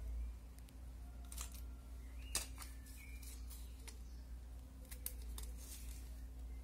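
Scissors snipping adhesive tape and the tape being handled and pressed onto newspaper: a few short, sharp clicks, the loudest about two seconds in, over a steady low hum.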